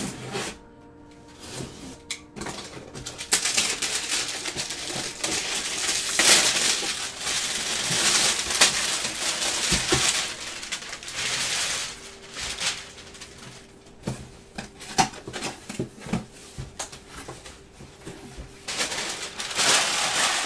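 A glossy-wrapped cardboard box being unwrapped and opened by hand: plastic wrap crinkling and tearing in long rustling stretches with sharp clicks and scrapes, and the box flaps being pulled open. Faint background music runs underneath.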